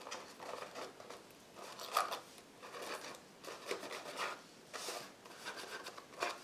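Sheer ribbon being pulled and tied into a bow around a small cardstock box: irregular rustling and rubbing as the ribbon slides over the paper, with sharper swishes about two seconds in and near the end.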